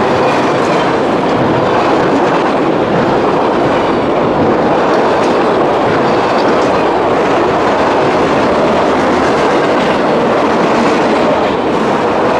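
A long freight train rolling past, loud and steady: the cars' wheels running and clattering on the rails.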